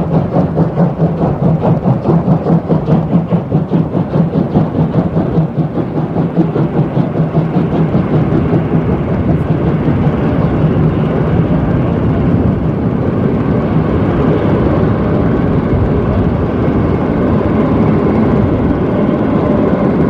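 Steam locomotive working a train: regular chuffing exhaust beats over a steady low hum, giving way after about six seconds to a steady rumble of the rolling train.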